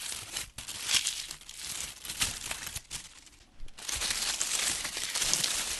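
Dry autumn leaves crunching: a dense run of irregular crackles that thins out briefly about three seconds in, then picks up again.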